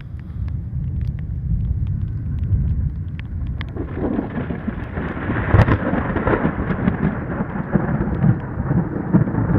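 Thunder from a lightning strike: a low rumble that swells about four seconds in into a loud crash with a sharp crack, then keeps rolling. It arrives seconds after the flash, because sound travels far slower than light.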